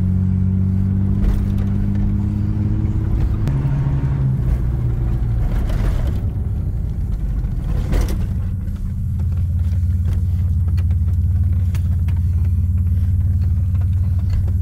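Off-road vehicle engine running steadily while driving, its note shifting about three and a half seconds in and easing briefly near nine seconds, with a few sharp knocks.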